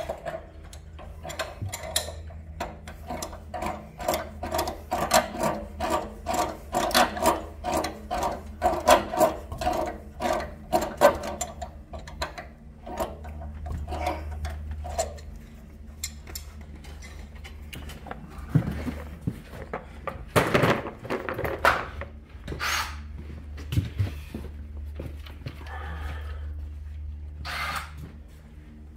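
Hand-tool work on the pipework: a fast run of sharp, even clicks, about three a second, for roughly the first half, then scattered knocks and scrapes.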